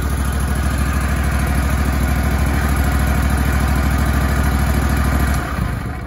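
Kohler Command engine of a Grasshopper zero-turn mower running steadily, then shut off about five and a half seconds in.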